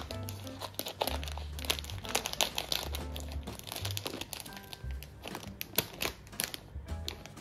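Soft background music with held low bass notes, over repeated crinkling and rustling handling noises.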